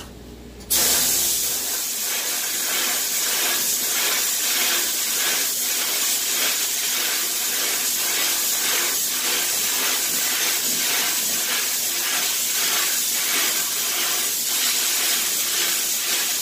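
Sandblast cabinet's blast gun spraying 80-grit aluminum oxide at 80 PSI onto a PVD-coated gun barrel: a loud, steady hiss of air and grit that starts suddenly about a second in. The coating holds up under the blast.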